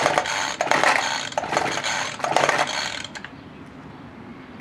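Recoil starter cord of a 25cc two-stroke hedge trimmer being pulled several times in quick succession, each pull a rasping rip, with the engine not catching; the pulls stop about three seconds in. It is on half choke and not yet primed enough to start.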